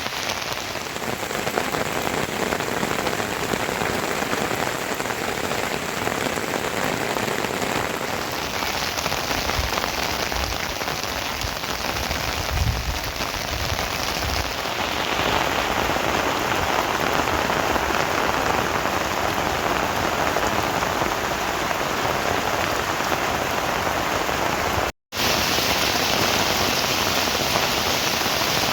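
Steady rain falling, an even hiss of many drops, with a momentary cut to silence about 25 seconds in.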